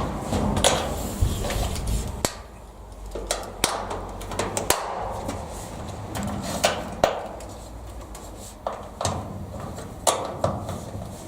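Irregular clicks and knocks as the sliding toggles along the bottom of a garage door are clipped shut to secure it.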